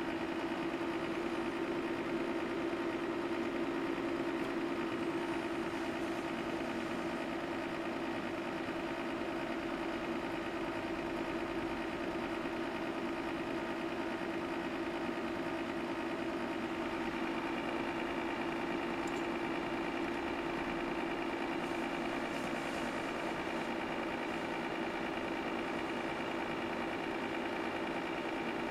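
Steady electrical and fan hum of bench test equipment, a drone made of several steady tones with one low tone strongest. A faint higher whine joins a little over halfway through.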